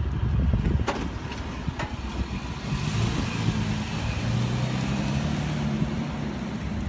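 A 2015 Toyota Tacoma TRD Off-Road pickup pulling away, its engine note steady with tyre noise over it. The engine note comes in about three seconds in, after a low rumble and a couple of clicks.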